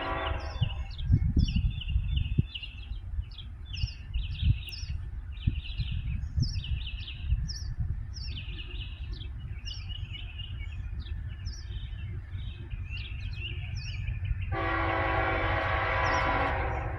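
A freight locomotive's air horn cuts off just under a second in, and the train rumbles past with scattered knocks and clanks. A bird chirps repeatedly over it, and the horn sounds again for about two seconds near the end.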